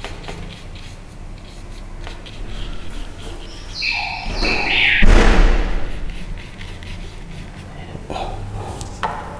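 A single loud thump about five seconds in, just after a short high tone that steps in pitch. Around them are a faint low hum and small scattered taps.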